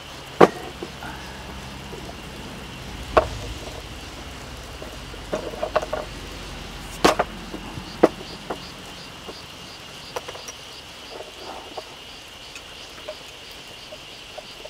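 Glass beer bottles knocking down onto a wooden table, a few clinks, and a sharp click about halfway through as a crown cap is pried off a Tsingtao bottle, then beer being poured into a glass near the end. Steady insect chirping runs underneath throughout.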